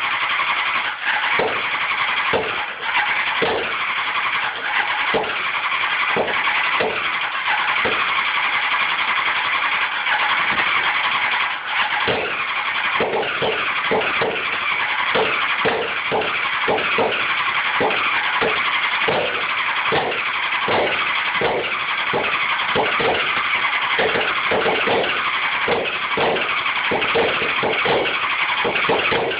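Honda CBR600F4 inline-four being cranked on its electric starter without firing: a steady starter drone with short regular pulses, about two a second from around halfway. The engine does not start.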